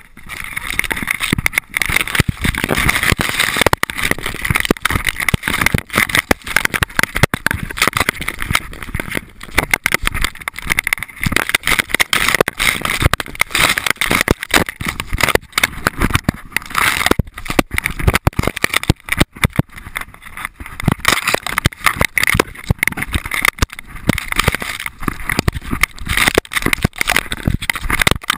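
Tall grass and brush rushing and scraping against a dog-mounted GoPro case as the dog runs through it, with many knocks and rubs on the camera housing.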